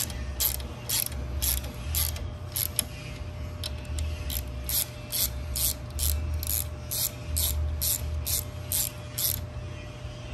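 Hand socket ratchet clicking in steady strokes, about two clicks a second, as it tightens the bolts that hold a treadmill motor to its bracket; the clicking stops near the end.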